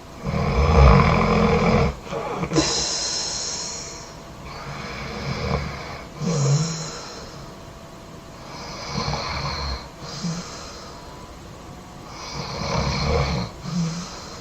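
A sleeping person snoring loudly: four deep, rattling snores about every four seconds, each followed by a short hissing breath, the first snore the loudest.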